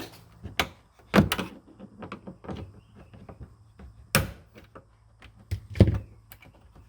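A series of sharp knocks and clicks from hand tools and plastic trim parts being worked on car trim. The loudest knocks come about a second in and near six seconds.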